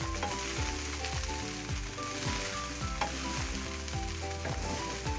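Fried rice sizzling in oil in a hot kadai over a high flame while it is tossed and stirred.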